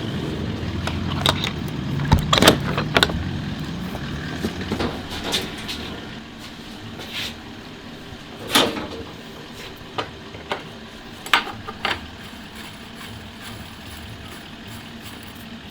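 A low mechanical rumble that fades after about five seconds, with sharp clicks and knocks scattered through it.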